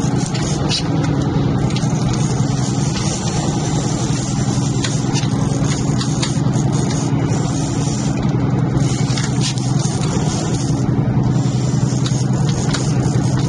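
Sportfishing yacht's engines running steadily, a loud, even low hum, with a few faint clicks scattered over it.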